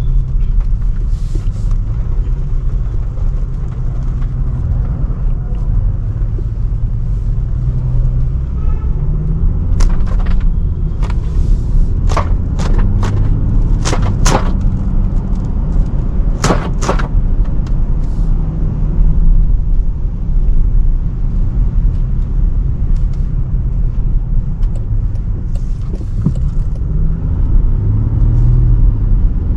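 Range Rover Sport driving: a steady low rumble of engine and road noise. A run of sharp clicks and knocks comes from about ten to seventeen seconds in.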